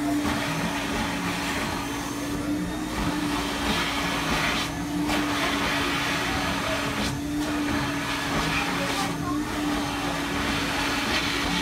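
Build-A-Bear stuffing machine's blower running, a steady airy rush with an even hum.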